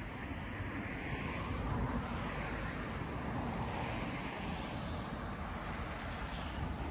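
Road traffic: cars passing along a city street in a steady noise, swelling twice as vehicles go by.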